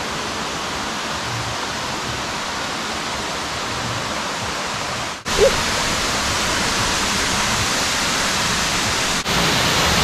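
Steady rushing of a waterfall, an even hiss of falling water. It gets louder in two sudden steps, about halfway through and near the end, as the falls come closer.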